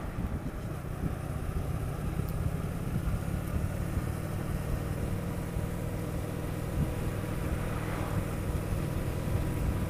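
Honda VT750S motorcycle's V-twin engine running steadily while the bike cruises along the road.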